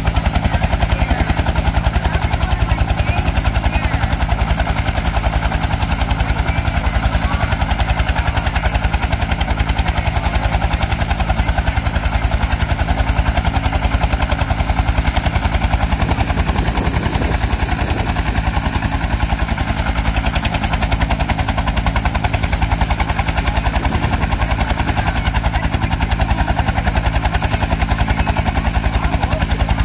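A Bell UH-1 Huey helicopter running on the ground, its two-bladed main rotor turning. The blades make a steady, rapid thumping over the turbine's steady drone.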